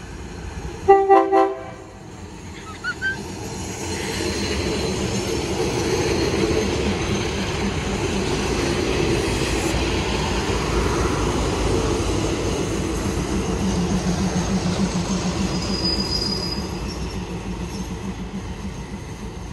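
A diesel train's horn gives a short blast about a second in. Then a train rumbles past, its engine and wheels growing louder, holding, and fading near the end, with a brief wheel squeal toward the end.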